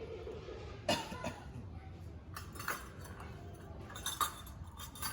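Kitchenware clinking in a display kitchen: several light, sharp clinks and knocks at uneven intervals, as items or cabinet fittings are handled.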